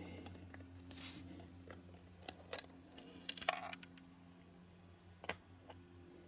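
Lego bricks being handled: a few scattered small plastic clicks and rattles, the loudest a little after three seconds, over a faint steady low hum.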